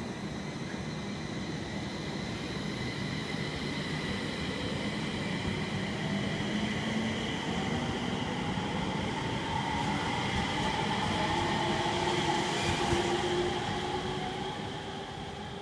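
JR East 701 series electric train pulling away from the platform. Its inverter and traction motors give a whine that climbs in pitch as it gathers speed, over the rumble of wheels on rail. It is loudest near the end, then fades as the train draws away.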